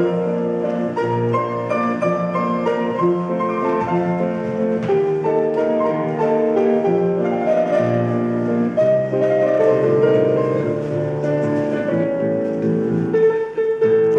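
Slow instrumental piano music with held chords over recurring bass notes, changing about once a second.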